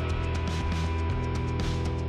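Rock intro music with electric guitar and a steady drum beat.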